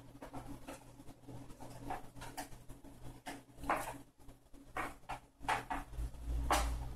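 Paper game cards being sorted by hand: an irregular run of short slides, flicks and taps as cards are pulled from a held hand and laid on a table, the loudest one near the end.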